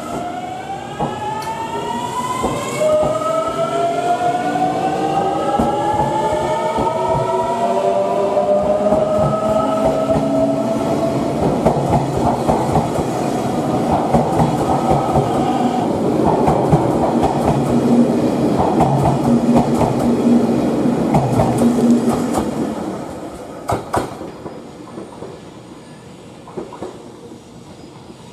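JR Shikoku 8000 series electric train pulling away: its traction motors give a rising whine in several tones for about the first ten seconds as it accelerates. Then the wheels clatter over the rail joints as the cars pass, and the sound fades about 23 seconds in as the last car goes by.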